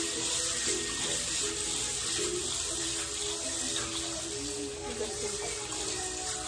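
Kitchen tap running steadily into a bowl of mung beans while a hand stirs and rubs the beans to rinse them.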